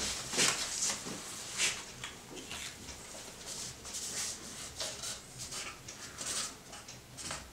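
Pen scratching across paper on a drawing pad, in a series of short strokes with uneven pauses between them.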